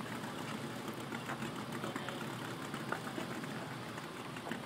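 Jeep Wrangler's engine running steadily as the Jeep wades through deep water.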